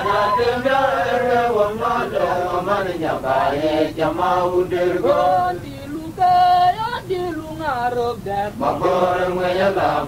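Voices singing a chant-like song, the melody moving on without a break.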